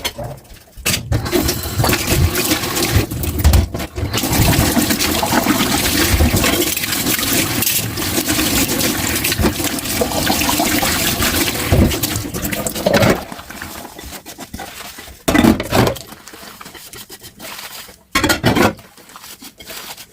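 Water from a kitchen tap running steadily into a sink for about twelve seconds, then turned off, followed by a few short splashes and knocks as dishes are handled.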